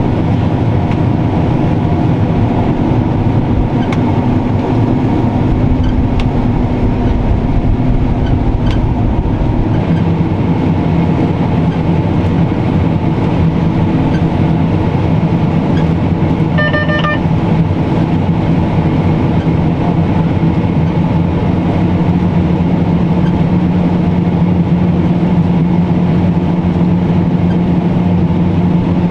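Large diesel farm machinery running steadily under way, with a constant engine drone. About seventeen seconds in there is a short electronic beep.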